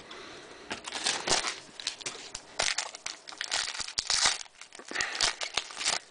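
Foil trading-card pack wrapper crinkling in a series of sharp, irregular bursts as it is opened and handled.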